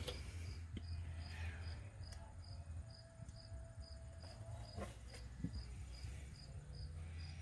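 Crickets chirping in a steady, regular pulse over a low steady hum, with the faint pour of thick gear oil from a plastic quart bottle into a funnel.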